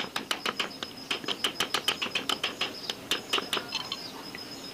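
Rapid light hammer taps on a cooler motor's sheet-metal end cover, about six a second, as rivets are tapped in; the taps stop about three and a half seconds in.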